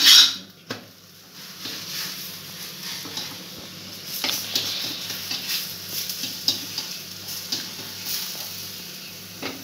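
Aloo paratha frying in ghee on a hot tawa: a steady sizzle with scattered scrapes and taps of a flat spatula pressing and turning it, and a loud clatter right at the start.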